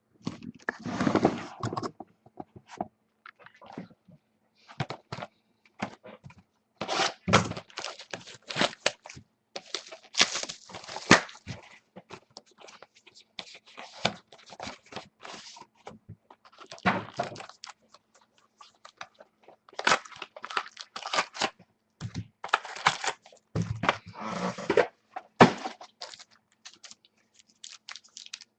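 Hands opening a sealed box of football trading cards: irregular tearing and crinkling of wrapper and packaging, with occasional knocks.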